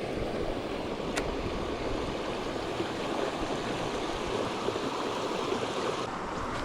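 Creek water running steadily over rocks and shoals, an even rushing hiss. A single short sharp click about a second in.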